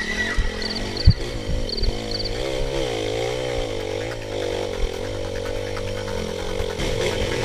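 Off-road motorcycle engine running under load, its revs rising and falling unevenly over rough ground, with a sharp knock about a second in.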